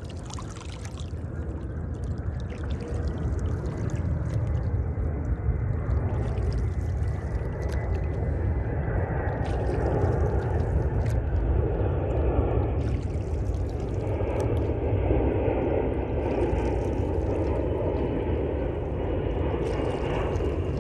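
Oars of a wooden rowboat pulling through the water, a swirl every two to three seconds, over a low steady rumble that grows louder in the first few seconds.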